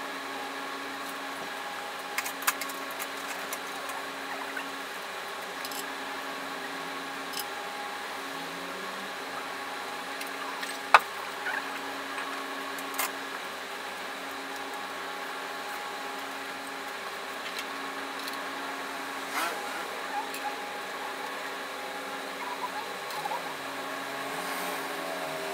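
A steady hum runs throughout, broken by a few sharp metallic clicks and taps from hand work at the engine's flexplate and bellhousing bolts. The loudest click comes about eleven seconds in.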